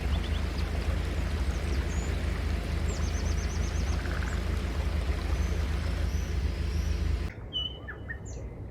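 A small engine running steadily, with birds chirping over it; the engine sound cuts off abruptly about seven seconds in.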